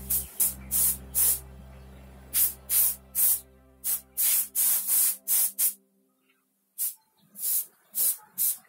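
Airbrush spraying thinned poster colour in many short hissing bursts of air as the trigger is pressed and released, with a brief pause about six seconds in. A steady low hum underneath stops about five seconds in.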